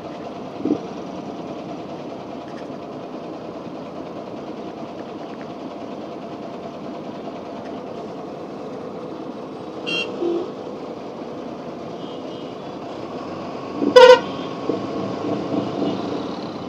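Steady hum of idling traffic in a jam, with a short vehicle-horn toot about ten seconds in and a much louder horn blast about fourteen seconds in.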